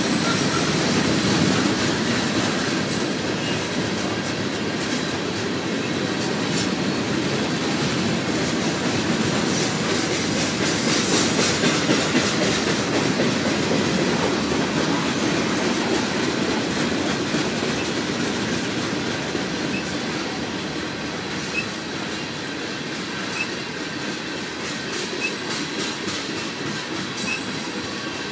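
Freight train of tank cars, steel coil cars and covered hoppers rolling past: a steady rumble of wheels on rail with a rapid run of clicks as the wheels cross rail joints, easing a little in loudness over the last third.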